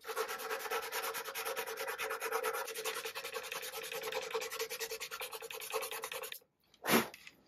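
Hand sanding with a sanding disc held in the fingers, rubbed fast back and forth over wood-filler patches on a walnut burl veneer panel. The rubbing stops about six seconds in, and a single sharp knock follows near the end.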